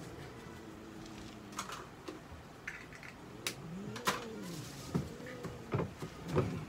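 A domestic cat's low growling moan, rising and falling in pitch, the sound of a cat displeased at being handled, with a few sharp clicks and light knocks of handling.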